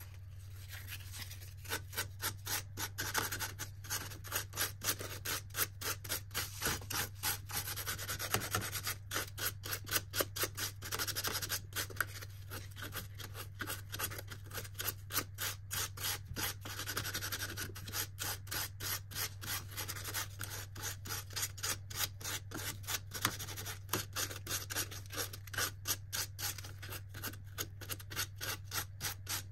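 Hand sanding of carved cottonwood bark with a small piece of sandpaper: quick back-and-forth rubbing strokes, about two or three a second, with brief pauses.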